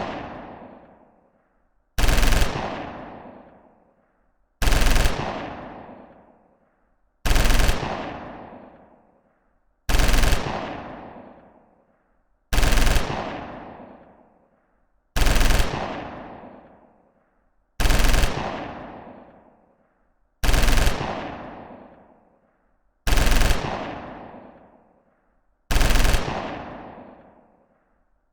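Machine-gun fire sound effect: ten short bursts of automatic fire, each about half a second long, repeating evenly about every two and a half seconds, each trailing off in a long echo.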